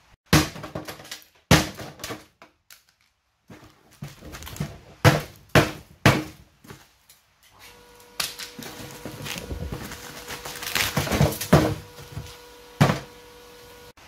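Sharp metal knocks and clatter as a stainless steel dishwasher is taken apart for scrap. About halfway a steady hum sets in and runs on under scraping and more knocks, with one last sharp knock near the end.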